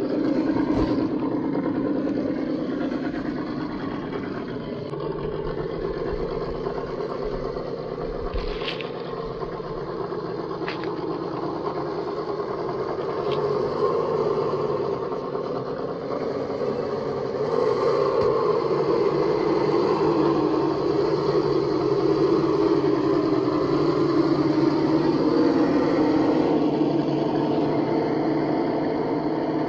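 1:10-scale RGT EX86190 RC crawler's electric motor and gearbox whining as it drives, the pitch rising and falling with the throttle, over a steady noise of tyres on gravel. A few sharp clicks of stones come in the middle, and it gets louder in the second half.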